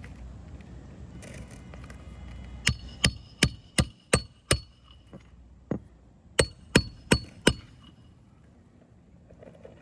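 Roofing hatchet hammering nails into asphalt shingles: a run of six quick blows, about three a second, a single lighter tap, then four more blows, each with a short metallic ring.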